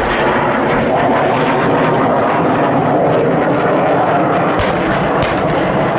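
Military aircraft flying past low, its engine noise loud and steady with a slow wavering swell. Two sharp cracks come near the end.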